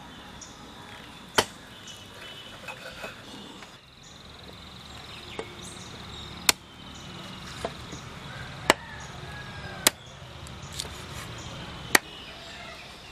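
A knife chopping raw chicken on a wooden chopping block: five sharp knocks at uneven intervals of one to two seconds, with fainter knocks between them.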